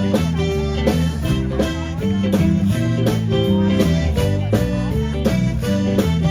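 Live band music: an instrumental passage of a country-blues song, guitar-led with bass and a steady beat.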